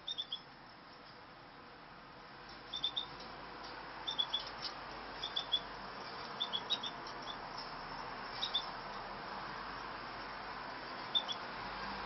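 Caged finches giving short high chirps in quick clusters of two or three, repeated every second or two, over a steady background hiss that slowly grows louder.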